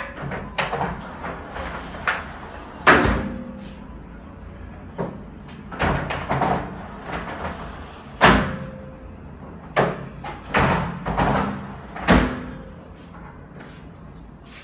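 Frameless glass balcony panels rolling along their track as they are pushed by hand, with a light rolling rumble and repeated sharp knocks as the panels come to a stop. The loudest knocks come about three, eight and twelve seconds in.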